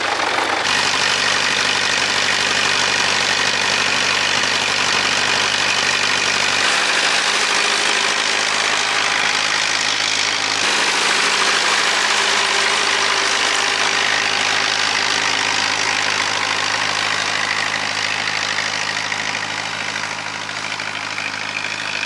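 McCormick B275 tractor's four-cylinder diesel engine running steadily; its note shifts abruptly a few times.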